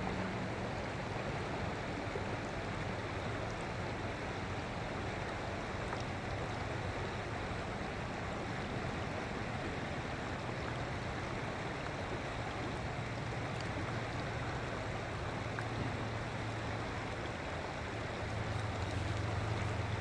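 Shallow river water running steadily over riffles and stones, with a low rumble swelling near the end.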